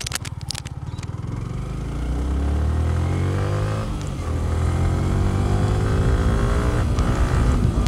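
Yamaha sport motorcycle's engine pulling away from low revs, its note climbing. The revs drop at a gear change about four seconds in, climb again, and shift once more near the end.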